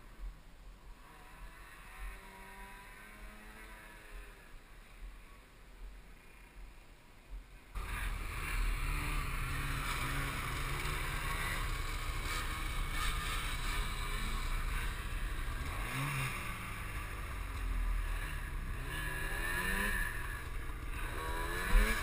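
Snowmobile engines running: faint at first with a distant engine's pitch rising and falling, then much louder and nearer from about eight seconds in, with short revs near the middle and end.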